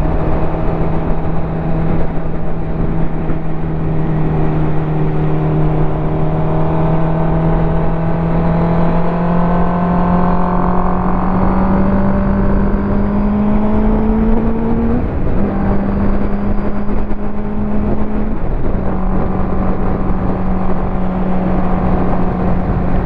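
Ducati motorcycle engine running under way, its note slowly rising as it accelerates for about fifteen seconds, then dropping in pitch twice, about fifteen and eighteen seconds in, over steady low wind rush.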